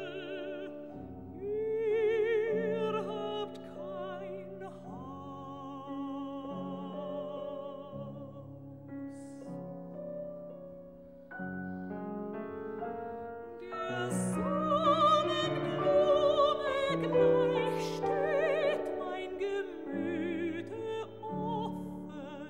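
Soprano singing a German art song with piano accompaniment, her voice carried on a wide vibrato over sustained piano chords. The singing climbs and grows louder a little past halfway.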